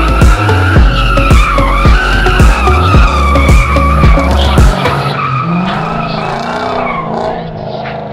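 Toyota Mark II drifting: its tyres squeal in one long wavering screech while its engine revs under load, the squeal fading near the end as the car pulls away. Electronic music with a heavy bass beat plays over the first half and stops a little past the middle.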